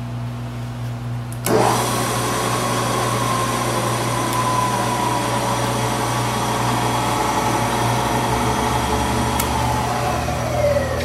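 Webb Champ vertical mill's spindle starting about a second and a half in and running with a steady whine, then shut off near the end and winding down in falling pitch.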